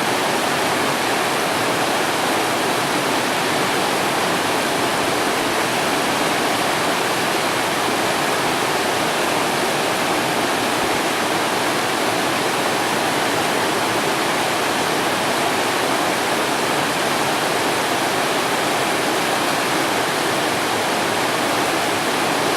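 A river's running water rushing steadily, a dense even roar with no single splashes standing out.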